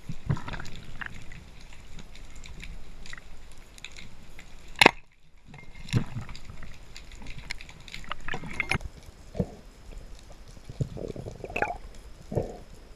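Underwater sounds of a spearfishing dive heard through a camera's waterproof housing: muffled water movement and sloshing with irregular knocks and clicks of gear. A single sharp crack, the loudest sound, comes near five seconds in.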